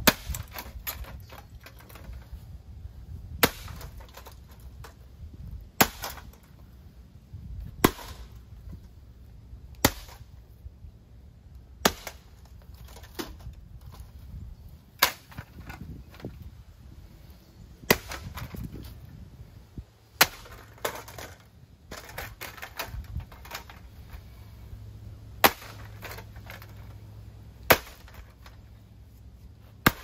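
Sledgehammer blows smashing a Harbor Breeze ceiling fan's motor housing: sharp impacts about every two seconds, roughly a dozen in all.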